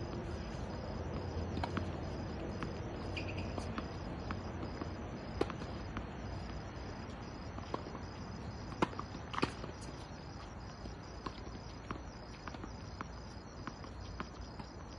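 Crickets chirring in a steady, even pulse, with scattered sharp taps from a tennis ball bouncing on the hard court and footsteps.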